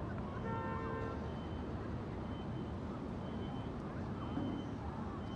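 Steady background noise of a busy outdoor square at night, with a brief pitched sound near the start and a faint high beep repeating about once a second.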